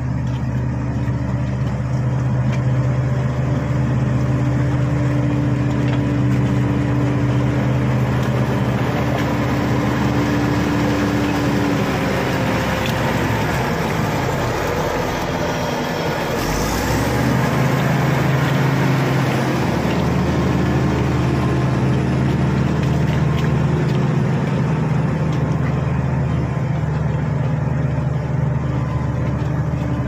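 Shantui SD16 crawler bulldozer's diesel engine running steadily under load as the dozer pushes earth. The engine note shifts and breaks briefly about halfway through, then steadies again.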